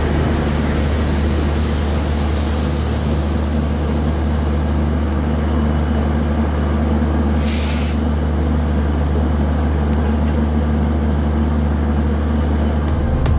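WDM-3A Alco diesel locomotive running with a steady low engine drone as it and its intercity coaches move past close by. There is a few seconds of air hiss at the start and a short, sharp air hiss about halfway.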